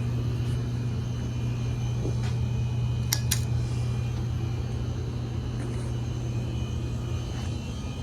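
Steady low drone of a car interior while driving, engine and road noise, with two quick clicks about three seconds in.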